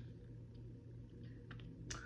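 Quiet small-room tone with a low steady hum, and two faint clicks near the end.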